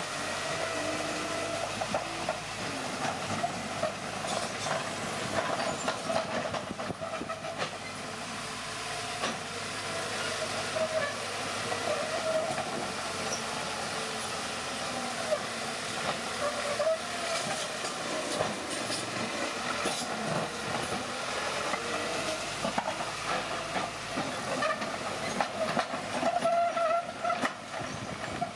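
Bulldozer working: the engine runs steadily while the steel tracks squeal in a wavering, high-pitched way and clank.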